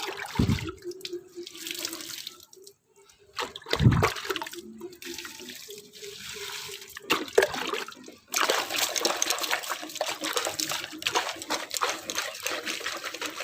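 Water running and splashing, sparse at first and then a heavy, steady flow from about eight seconds in. Two dull thumps come in the first four seconds.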